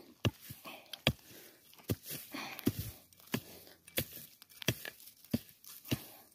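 A digging tool striking into the ground at a steady pace, about nine sharp strikes, roughly three every two seconds, with light scraping of loosened earth between them. The ground is being dug out to recover a target that the metal detector has signalled.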